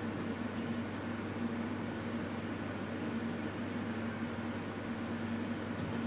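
Gas stove heater burning steadily: an even rushing hiss with a low hum underneath.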